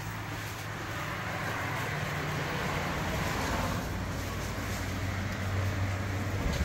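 A vehicle running: a steady low hum with road noise, growing slightly louder about two seconds in.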